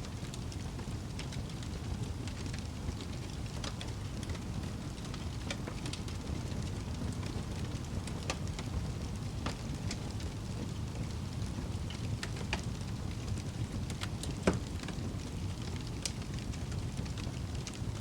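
Fireplace fire crackling: a steady low rumble of flame with scattered small pops and one louder pop about three-quarters of the way through.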